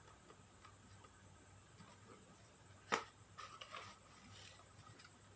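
Quiet room with faint ticks, one sharp click about three seconds in, then a short run of softer clicks and taps.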